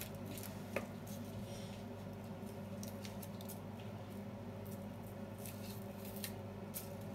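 Faint crackling and rustling of dry onion skin being peeled off by hand, with a few small crisp clicks scattered through, over a steady low hum.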